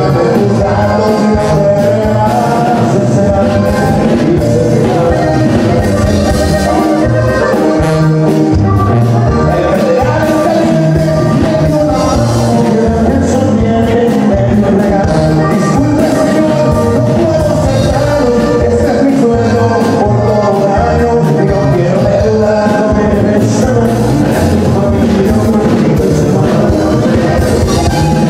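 Live norteño band music: button accordion, guitar and drums playing, with a man singing into a microphone.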